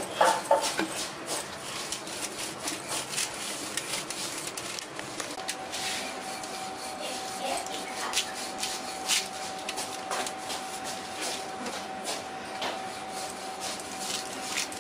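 Wooden rolling pin rolling back and forth over cashew burfi dough on a plastic sheet: steady rubbing, with small scattered crinkles and clicks from the sheet.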